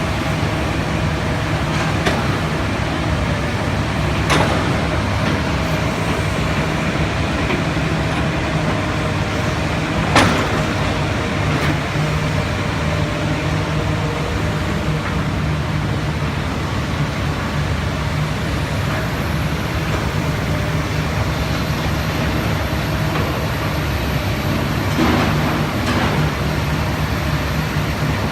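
Komatsu PC400 excavator's diesel engine running steadily, with a few sharp knocks; the loudest comes about ten seconds in.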